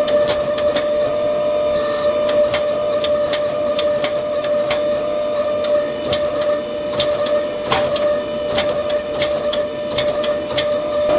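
Gas forge running with a steady drone and a steady hum, with scattered sharp clicks and crackles throughout as a damascus steel billet heats in the fire.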